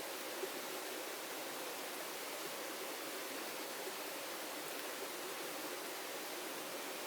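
Heavy rain falling in forest, a steady even hiss with one brief tap about half a second in.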